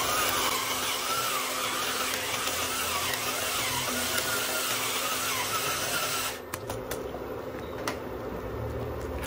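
Electric pepper grinder running, its small motor whining as it grinds white peppercorns, and stopping about six seconds in.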